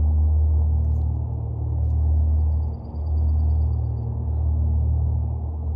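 A steady low rumble with a faint hum, briefly dipping about three seconds in.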